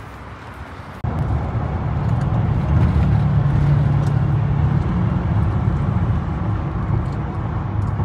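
Road noise inside a car cruising on a highway: a steady low rumble of engine and tyres that cuts in suddenly about a second in, after a quieter outdoor background.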